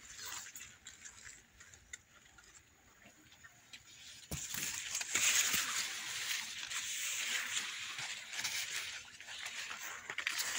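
Maize leaves rustling and brushing as someone moves through a tall cornfield. A sharp knock comes about four seconds in, and the rustling is louder from then on.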